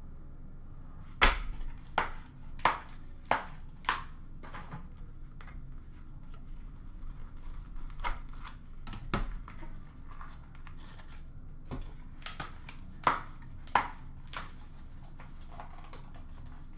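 Packaging of a sealed trading-card box being handled and opened: a string of sharp clicks and snaps with plastic crinkling, five quick snaps in a row early on and further clusters later.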